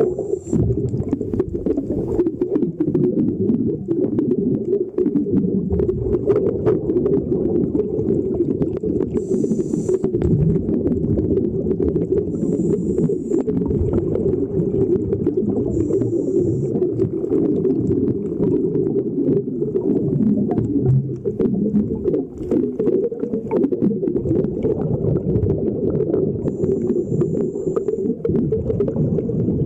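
Muffled underwater rumble of water moving around a camera in its waterproof housing as it passes along a boat's hull, with several short high hisses a few seconds apart.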